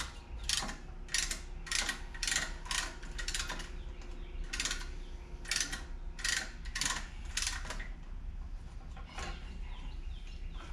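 Ratcheting brake caliper piston compressor tool clicking stroke by stroke, about two clicks a second, thinning out near the end. It is pushing the caliper pistons back to make room for new brake pads.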